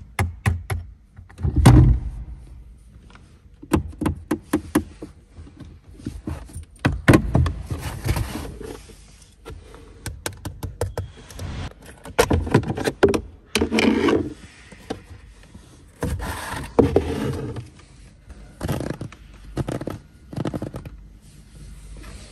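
Hard plastic clicking, knocking and scraping as a car's glovebox is opened, the cabin air filter housing cover is unclipped and the old filter is slid out. A loud thump comes about two seconds in, with scraping stretches later on.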